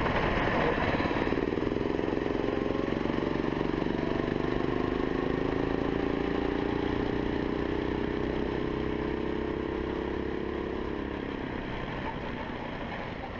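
Engine of a 9 hp rental go-kart running under way, heard from the driver's seat. Its pitch sags slowly as the kart eases off, and it fades toward the end.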